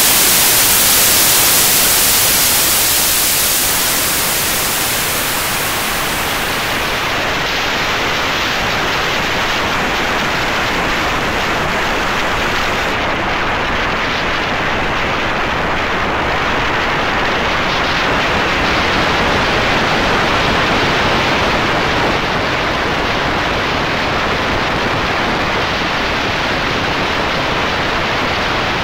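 Steady electronic noise, a bright static hiss that turns duller as its highest part is cut away about seven seconds in and again around thirteen seconds, leaving a softer rushing noise.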